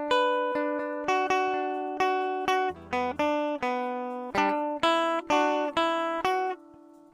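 Background music of plucked guitar: single notes and chords, each struck sharply and fading away, about two a second, easing to a soft held note near the end.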